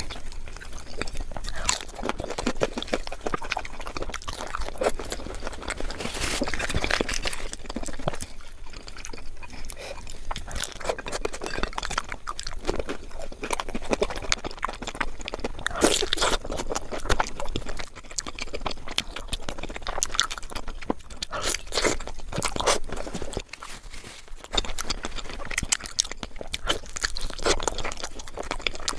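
Close-miked eating with the hands: chewing and crunching of puri and curry-soaked meat, with many small irregular wet clicks and the food being torn and handled.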